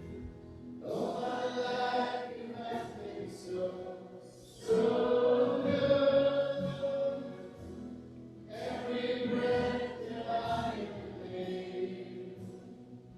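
Group of voices singing a worship song together, in phrases a few seconds long.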